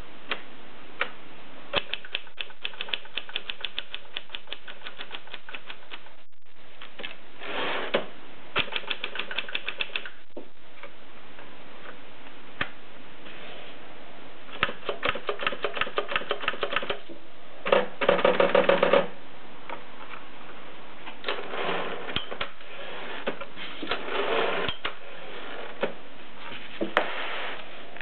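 Manual portable typewriter being typed in quick runs of keystrokes, about eight to ten clacks a second, with short pauses between runs. A denser, louder rattle comes about eighteen seconds in.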